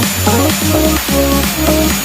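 Electronic dance music with a steady beat, bass and synth melody.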